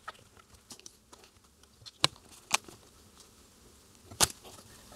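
Faint handling noise of a dial cord being knotted with a small hand tool. A few sharp clicks of the tool come about two seconds in, again half a second later, and once more just after four seconds.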